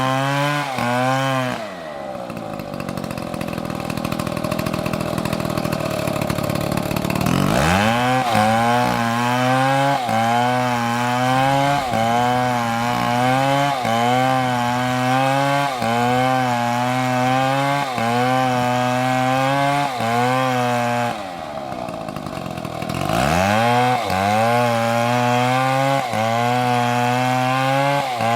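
Chainsaw cutting into a large tree, its engine held high under load with the pitch wavering about once a second. Twice, about 2 s and 21 s in, the engine eases off and then revs back up into the cut.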